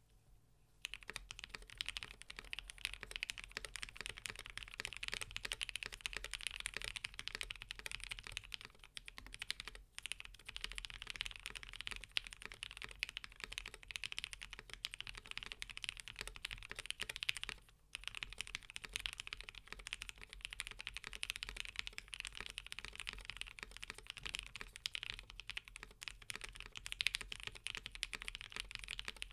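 Fast continuous typing on a custom mechanical keyboard, an ai03 Polaris with lubed Alpaca linear switches (205g0) on a polycarbonate plate, with Cherry-profile PBT keycaps on a deskmat. It starts about a second in and pauses briefly twice.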